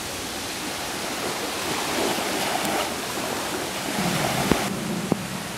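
Steady rushing noise of wind-driven rain over choppy water, with two sharp clicks near the end.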